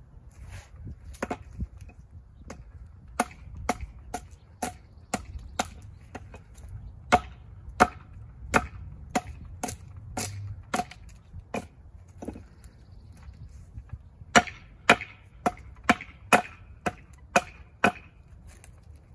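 Hatchet chopping into a split half-log of cedar: a long run of sharp, dry strikes, about two a second, the loudest coming in a quick series near the end.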